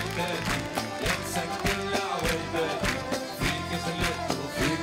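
Live band playing an upbeat Arabic instrumental introduction with a steady beat.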